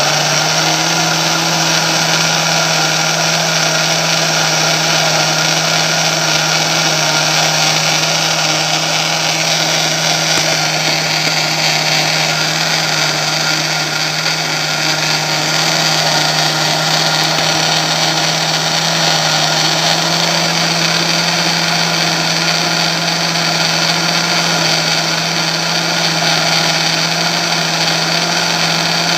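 Countertop blender motor running steadily at one even pitch, blending corn cake batter after flaked cornmeal has been added.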